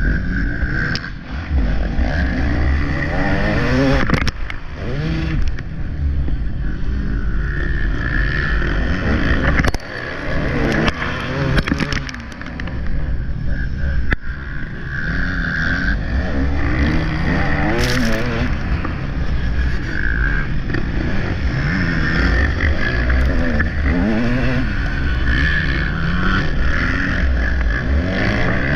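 Motocross bike engine heard on board during a race, revving up and down over and over through the gears and corners, dipping briefly a few times when the throttle is shut.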